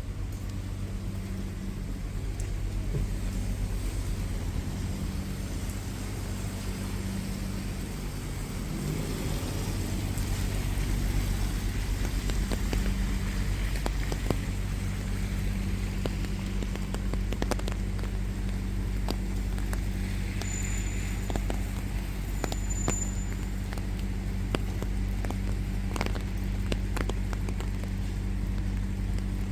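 Wet city street ambience: a steady low engine hum of nearby road traffic, with scattered light ticks and clicks and two brief high beeps a couple of seconds apart.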